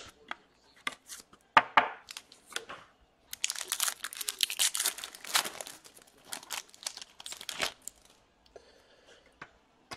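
A trading-card pack wrapper being torn open and crinkled, with a few sharp clicks in the first two seconds and a dense crackling stretch from about three and a half to nearly eight seconds in.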